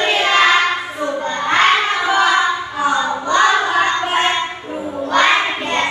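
A class of young schoolchildren singing a song together, led by their teacher.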